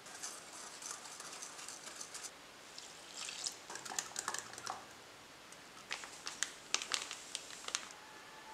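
Faint, irregular clicking and tapping of kitchen food preparation, coming in three short clusters with pauses between them.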